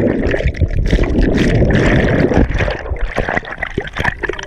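Churning water and bubbles heard from an action camera plunged underwater: a dense rushing sound for the first couple of seconds, then a rapid crackle of bubbles.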